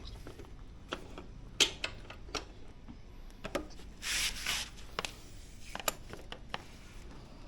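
Spanner and tools working at a motorcycle's rear axle nut: scattered light metallic clicks and knocks as the nut is loosened, with a short scraping rub about four seconds in.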